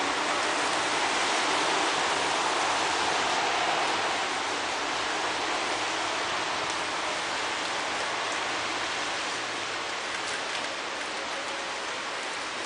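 Steady rain falling on a street, an even, unbroken hiss.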